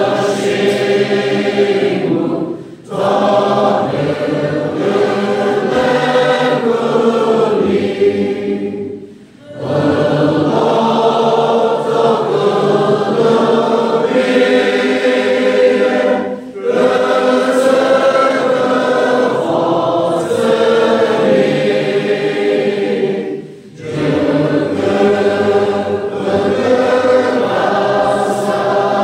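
Congregation singing a hymn together, many voices of men and women in sustained long phrases, each phrase broken by a brief pause for breath about every seven seconds.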